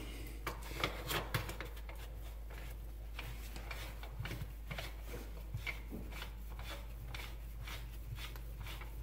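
Plastic locknut being turned by a gloved hand up the threads of a cheap plastic pop-up drain body: irregular light clicks and rubbing scrapes, several a second.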